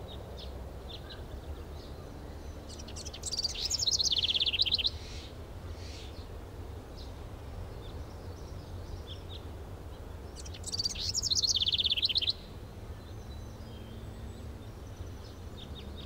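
A songbird singing two rapid trilled phrases, one about three seconds in and one near eleven seconds, each about a second and a half long and dropping in pitch, with faint scattered chirps between them.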